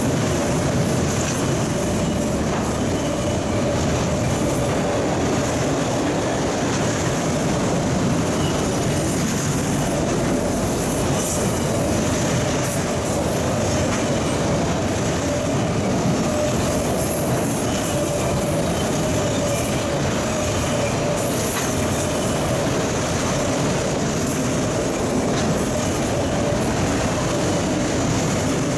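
Freight train of autorack cars rolling past at close range: a steady, unbroken rumble of steel wheels on rail, with a steady mid-pitched tone running through it.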